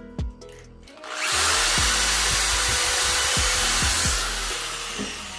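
Power drill driving a screw into wood: a loud run of about three seconds starting about a second in, then winding down. Background music with a steady beat plays throughout.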